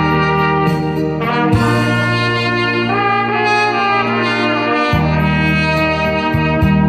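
A lead wind instrument with a brassy, trumpet-like tone plays long held melody notes over a backing track with a bass line and a steady ticking hi-hat beat.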